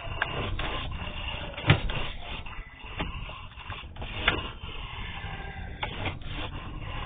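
Sewer inspection camera's push cable being fed through a PVC drain line: continuous rattling and scraping, with a few sharp knocks, the loudest about two seconds in.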